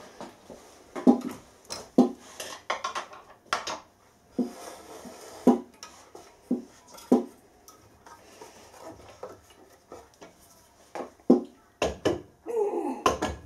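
Irregular metal clanks and knocks as a three-phase electric motor and its mounting hardware are handled and set onto a milling machine's motor mount.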